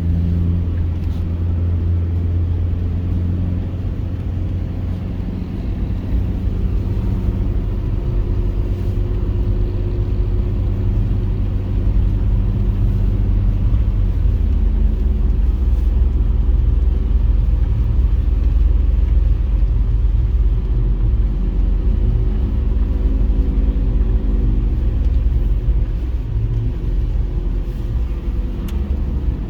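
Mitsubishi Pajero iO driving: a steady low rumble of engine and road noise, the engine's hum shifting in pitch now and then.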